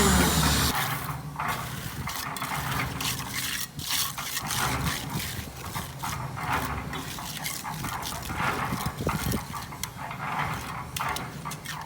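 An engine winds down and stops right at the start, then wet concrete is handled: irregular scraping, clinking and splashing.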